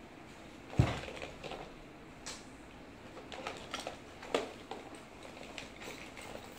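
Hand tools knocking and clinking against each other, with rustling of a fabric backpack, as tools are pulled out of the bag. A sharp knock about a second in is the loudest, followed by scattered lighter clicks and knocks.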